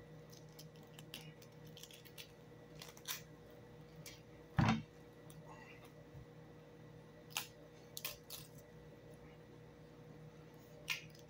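Cabbage leaves being peeled and snapped off a head of cabbage by hand: scattered faint crisp crackles and snaps, with one louder dull thump a little less than halfway through.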